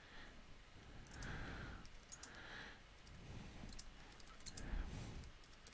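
Faint computer keyboard typing: scattered, irregular key clicks as a command is typed.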